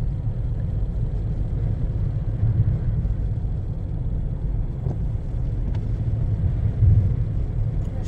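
Steady low rumble of a car driving on a snow-covered road, heard from inside the cabin.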